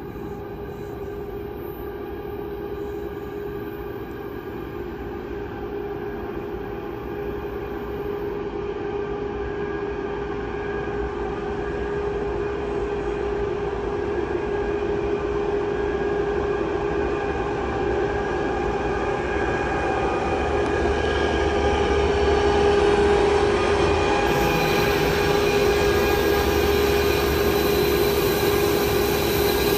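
Approaching freight train led by CN's GE ET44AC and ES44AC diesel locomotives, growing steadily louder, with a steady high whine over the train noise. A deep engine rumble comes in strongly about two-thirds of the way through.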